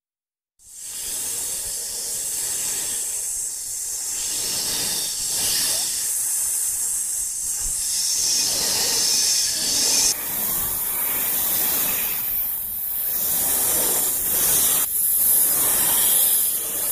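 Loud, steady hissing noise that starts abruptly about half a second in and swells and eases every couple of seconds.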